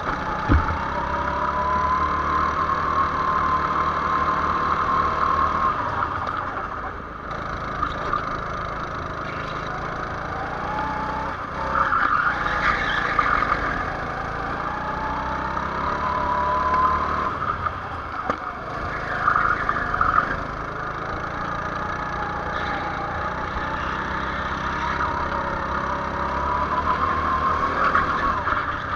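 Go-kart engine heard from on board while lapping, its pitch climbing under acceleration and dropping as the throttle is lifted for corners, with sharp drops about seven and eighteen seconds in. A short thump sounds just after the start.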